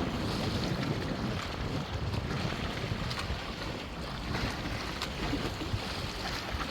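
River waves churned up by a strong gale, splashing and lapping against the bank, with heavy wind buffeting the microphone as a steady low rumble.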